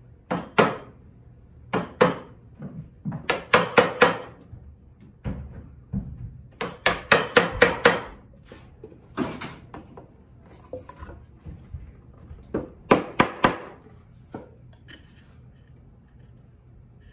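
Wooden mallet striking a chisel to chop into a drawer part, in short groups of sharp knocks, with a fast run of four blows about three and a half seconds in and another quick run around seven seconds. Fainter small knocks and scraping near the end.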